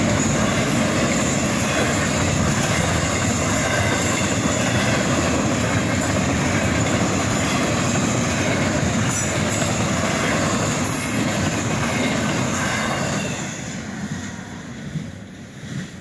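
Double-stack intermodal freight cars rolling past: a steady noise of steel wheels on rail that dies away about three seconds before the end as the last car clears the crossing.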